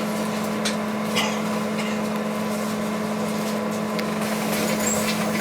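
Inside a moving trolleybus: a steady electric hum from the vehicle, with a few light rattles and clicks.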